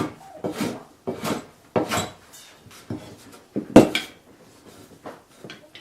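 Hand tool shaving wood in repeated strokes, roughly one or two a second, with a sharp knock a little under four seconds in.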